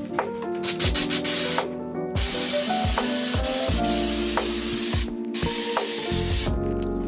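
Air spray gun hissing as it sprays Raptor bed liner, in two long bursts with a short break about five seconds in. Background music plays throughout.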